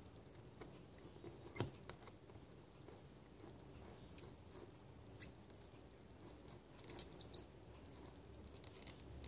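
Faint small clicks and crackles as a soldering iron tip works a blob of molten solder over a row of header pins, with one sharper click about one and a half seconds in and a brief cluster of crackles about seven seconds in.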